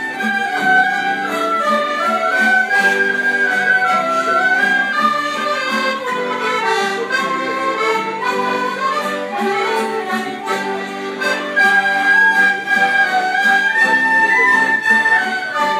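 Traditional folk band of accordion, fiddles, guitar and whistle playing an Irish tune together, the melody moving steadily over chordal accompaniment.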